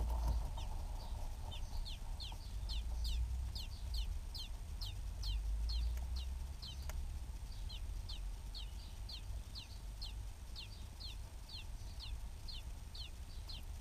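A Eurasian blackbird nestling peeps from under its brooding mother: a steady run of thin, high chirps, each falling in pitch, about two or three a second, with a pause of about two seconds midway. A low rumble runs underneath.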